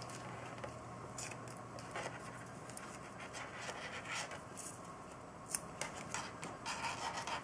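Masking tape being pressed and wrapped around the cable opening of an all-in-one water-cooling pump block: faint, scattered crinkling and scratching, busier near the end.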